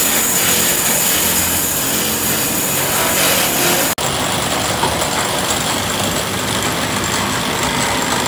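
Steady hum and whir of a woodworking shop's electric motors and belt-driven wood lathes running, with a hiss over it. The sound breaks off for an instant about four seconds in.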